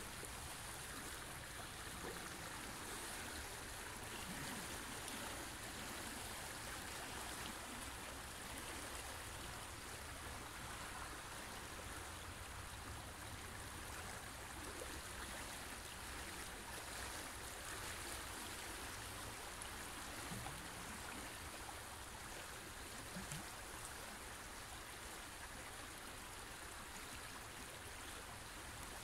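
Wide, fast river flowing past a rocky bank: a steady, even rush of moving water.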